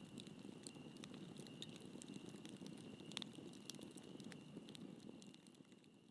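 Campfire crackling faintly, with scattered irregular pops over a low rush, and a steady thin high whine throughout.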